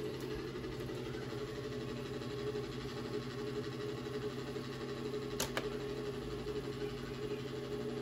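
Steady low electrical hum, with two light clicks close together about five and a half seconds in.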